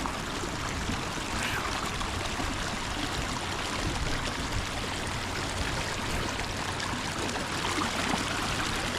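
Steady rushing of running water from a creek and its waterfalls, an even sound with no breaks.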